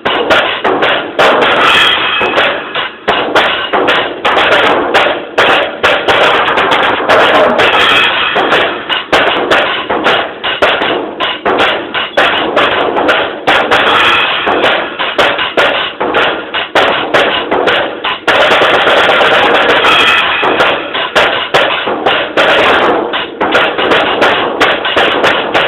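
Drum kit played in a fast, busy drum solo, hits coming several times a second with a stretch of near-continuous playing about eighteen seconds in. Recorded loud on a mobile phone, the drum sound is poor.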